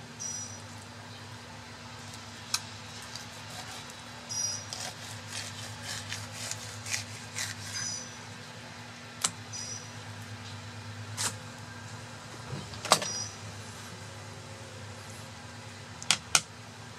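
Fillet knife cutting yellowtail snapper on a wooden board: scattered sharp clicks and short scrapes as the blade works through the fish and taps the board, over a steady low hum. A few short high chirps come and go.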